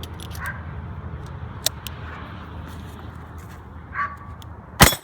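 A single 9mm shot from a Smith & Wesson 929 revolver near the end, the loudest sound by far: a round that had failed to fire goes off at last, a light-strike problem the shooter puts down to the trigger job and the primers. Before it, a sharp click about a second and a half in, over a steady low rumble.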